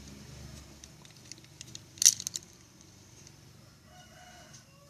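A single sharp click about two seconds in as the washing machine timer is handled and opened, then a rooster crowing faintly near the end.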